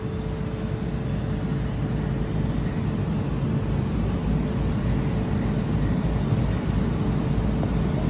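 Steady background machinery hum: a low rumble with one constant droning tone, unchanging throughout.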